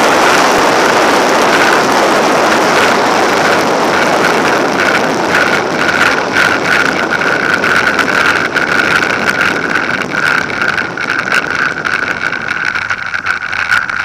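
Wind and rolling noise on a Pitts biplane's strut-mounted camera while the aircraft rolls slowly across grass, fading away. A steady engine tone comes through more clearly as the noise drops.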